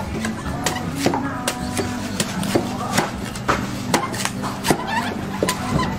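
Background music with a quick, steady beat over sustained low notes.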